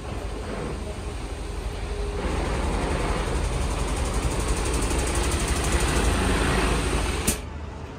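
Full-size coach pulling away from the stop: a low engine rumble and tyre noise that grow louder about two seconds in as it moves past close by. The sound stops abruptly with a click near the end.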